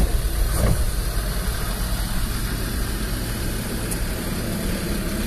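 Land Rover Defender's Td5 five-cylinder turbodiesel running as the vehicle rolls slowly, heard from inside the cab as a steady low rumble.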